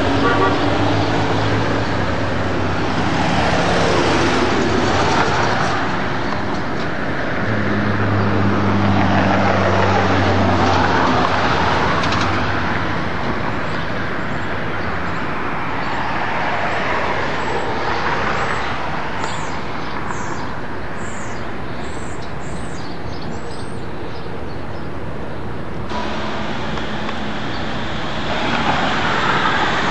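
Downtown street traffic: cars passing one after another, each swelling and fading, over a continuous low engine hum.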